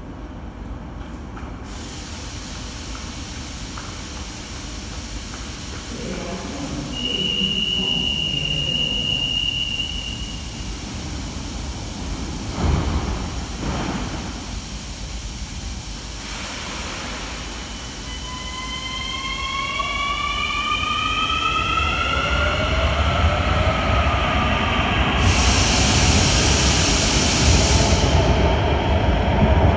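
Santiago Metro CAF AS-2014 subway train departing a station: a steady high beep for about three seconds, a thud, then the electric traction motors whine with several tones rising in pitch as the train accelerates. A burst of hiss comes near the end.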